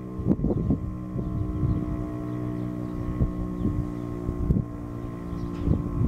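Federal Signal Thunderbeam RSH-10 electronic siren sounding a steady alert tone, with wind gusting on the microphone.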